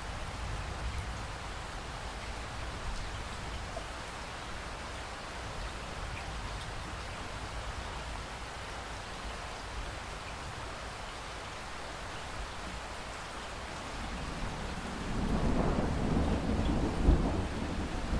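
Steady rain falling, with a low rumble of thunder that builds about fifteen seconds in and swells near the end.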